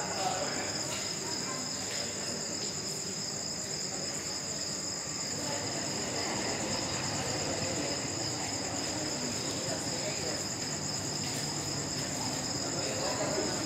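Crickets trilling steadily in two high-pitched bands that pulse finely. A faint low hum comes in about eleven seconds in.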